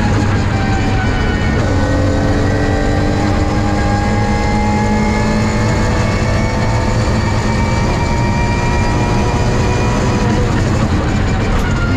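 BMW E36 rally car's engine at full throttle in sixth gear, heard from inside the cockpit. Its note climbs slowly and steadily as speed builds, then breaks off right at the end.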